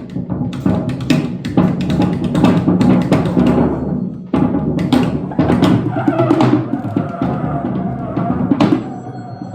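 Free-improvised percussion and trombone: dense, irregular drum and percussion strikes, joined about six seconds in by a wavering, held trombone tone.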